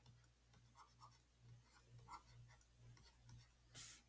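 Near silence with faint, short scratches and taps of a stylus writing on a tablet screen, over a faint pulsing low hum. A brief hiss near the end.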